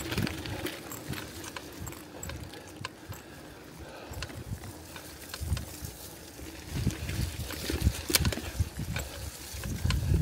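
Bicycle ridden over a rough track: irregular clicks, knocks and rattles, busier and louder towards the end, over a low rumble of wind on the microphone.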